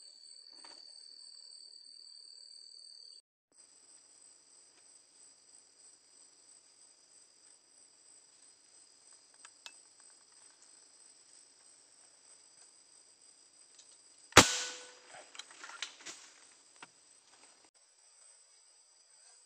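Night insects chirring steadily at a few high pitches. About fourteen seconds in, a single sharp air-rifle shot rings out, followed by a couple of seconds of rustling and small knocks in dry bamboo debris.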